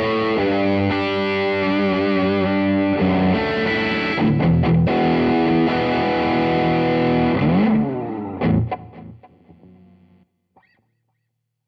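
Music Man Silhouette Special electric guitar played through MODEP effect plugins on a Pi Sound card, with distortion. It plays sustained chords, then a falling glide in pitch about eight seconds in. The notes then die away to silence near the end.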